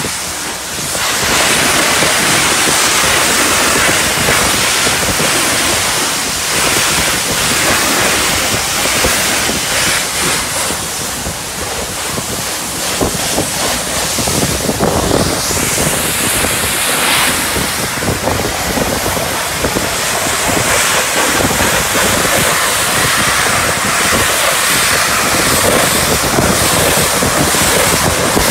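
Self-service car wash foam lance spraying thick foam under pressure onto a car body: a loud, steady hissing spray that shifts in tone partway through.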